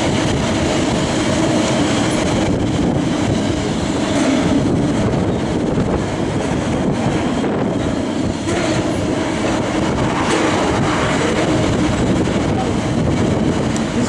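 Long double-stacked container freight train passing, its wagons' wheels running steadily on the rails.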